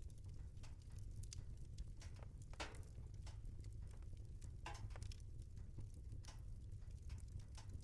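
Wood fire in a fireplace crackling: irregular sharp pops and snaps over a steady low rumble, with a couple of longer, louder snaps about two and a half and four and a half seconds in.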